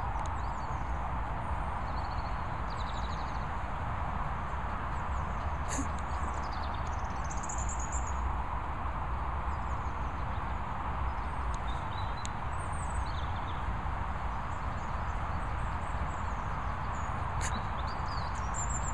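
Outdoor background: a steady rushing noise with a low rumble, and small birds chirping on and off in short high calls. There are two sharp clicks, about six seconds in and near the end.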